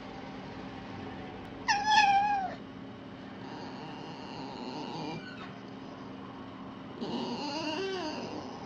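Red fox calling: a loud, high, wavering whine about two seconds in, fainter calls after it, and a lower, drawn-out wavering call near the end.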